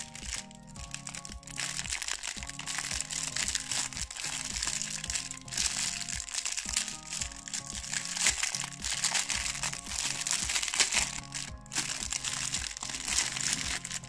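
Thin clear plastic wrapper crinkling as it is pulled off a bundle of interlocking plastic toy pieces, starting about a second and a half in and easing off near the end, over background music.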